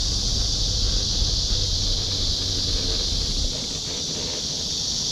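Steady high-pitched insect chorus, with a low wind rumble on the microphone that eases about three and a half seconds in.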